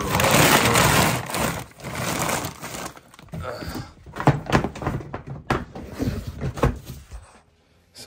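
Loud rustling for about the first two seconds, then a scatter of knocks and clunks as things are handled and moved about among feed sacks and bins, dying away shortly before the end.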